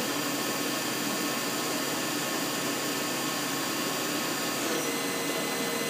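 Right-side spindle of a 1994 Wasino TH-10 CNC lathe running at 3,500 RPM, a steady whine of several even tones that sounds healthy. Near the end its high tone drops in pitch as the spindle is slowed down.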